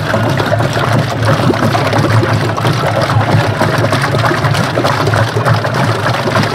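A wooden paddle stirs and scrapes thickening sheer yakh (Afghan ice cream) mixture around a metal pot, sloshing and scraping continuously, over a steady low hum.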